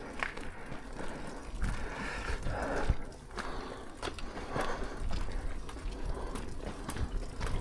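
Footsteps and the effortful breathing of someone pushing a heavy, dead motorcycle up a slope on foot, with scattered scuffs and clicks and a low wind rumble on the microphone.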